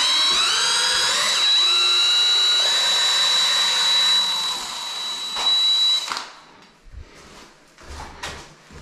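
Electric drill with a mixing paddle stirring gypsum skim-coat compound in a bucket. The motor speeds up in steps over the first couple of seconds, runs with a steady high whine, and stops about six seconds in.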